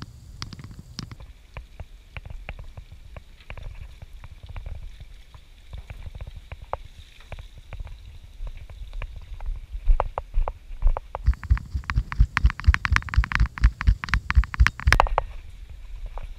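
Small baitfish flopping and slapping on a wooden dock deck after being emptied from a cast net: a patter of quick taps and thumps, scattered at first, then dense and loud from about ten seconds in, with one heavier thump near the end.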